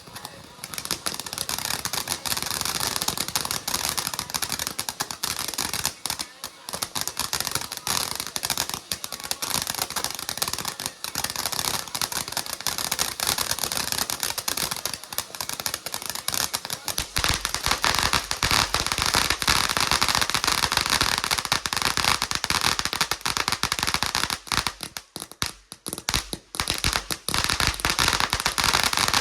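A long string of firecrackers going off in a rapid, continuous crackle of pops. It starts about half a second in and thins briefly near the end before picking up again.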